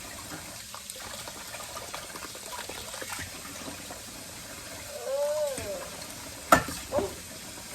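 Steady watery hiss in a kitchen, with a short pitched note that rises and falls about five seconds in, then two sharp clacks near the end.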